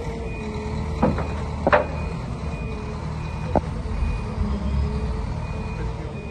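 Wheel loader's diesel engine running steadily with its reversing beeper sounding at regular intervals, and a few sharp knocks, the loudest just under two seconds in.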